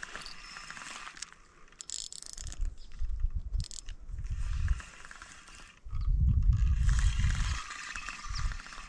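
Spinning fishing reel being worked, its mechanism giving a fine ticking, ratcheting sound. Two bouts of low rumble on the microphone, the louder about six seconds in.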